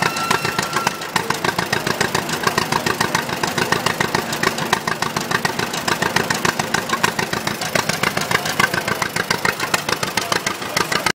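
Vintage two-cylinder John Deere tractor engine running at idle, a rapid steady chug of firing pulses. The sound cuts off abruptly at the end.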